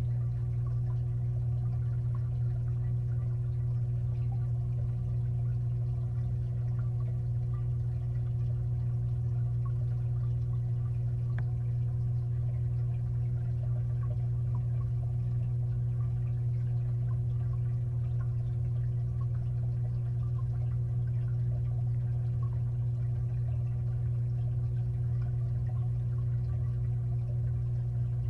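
Steady low hum of a 55-gallon aquarium's filter and pump equipment, heard from inside the tank through the water, with faint scattered ticks.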